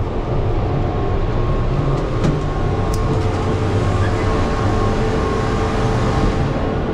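Steady rumble of gondola lift terminal machinery, with a constant hum from the bullwheel drive and cabins running through the station.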